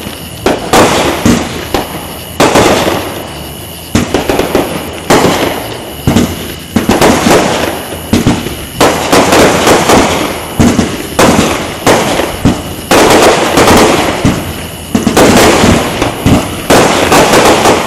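Aerial fireworks bursting overhead in a rapid, continuous series of loud bangs, with dense crackling clusters between the larger reports.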